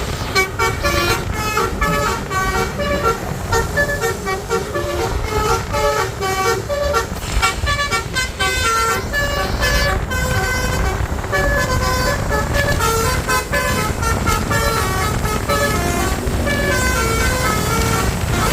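Basuri 'telolet' musical bus horn playing a melody of short stepping tones, one after another, over a steady low rumble.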